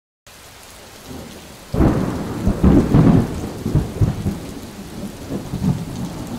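Steady rain begins just after the start. About a second and a half in, a loud thunderclap breaks in and rolls on as repeated rumbles over the rain.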